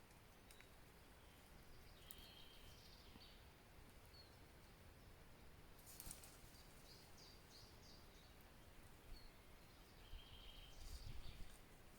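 Near-silent forest ambience with faint, scattered bird calls: short high whistles and chirps now and then over a quiet hiss.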